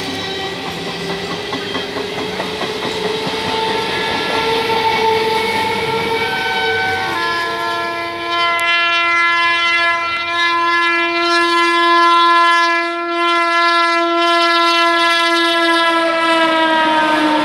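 Passing train rumbling and clattering over the rails, then a long multi-tone train horn from about seven seconds in, held about ten seconds and dropping in pitch near the end as the WAP-7 electric locomotive of the express passes close by.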